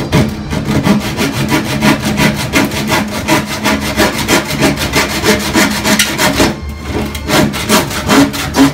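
Hand saw cutting a thin wooden panel, a steady run of quick back-and-forth rasping strokes with a short pause about two-thirds of the way through.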